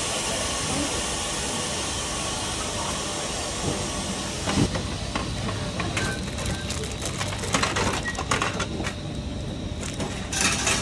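Spiral-coil vending machine dispensing a bagged chocolate banana. A steady hiss, then about four and a half seconds in a single knock as the item drops into the delivery bin, followed by crinkling of the plastic wrapper and clicks as it is pulled out through the delivery hole.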